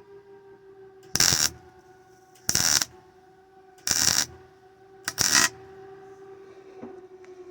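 MIG welder laying four short tack bursts about a second and a half apart, each a crackling arc lasting a fraction of a second, over a steady hum.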